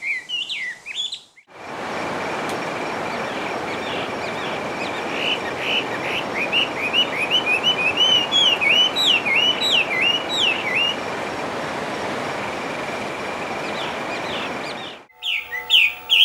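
Chinese hwamei (melodious laughingthrush) singing: phrases of quick rising and falling whistled notes, heard in the first second, through the middle, and again at the very end. Under the middle stretch a loud steady hiss and a thin steady high tone begin about a second and a half in and cut off abruptly near the end.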